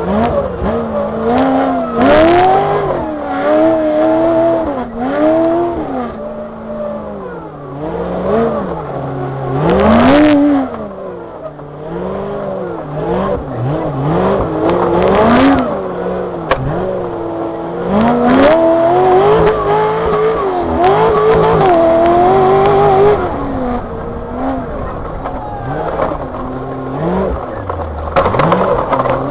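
Rock racing buggy's engine revving up and falling back over and over as it is driven over rough ground, heard from inside the roll cage. A few sharp bangs cut through, near the start, about ten seconds in and a few seconds later.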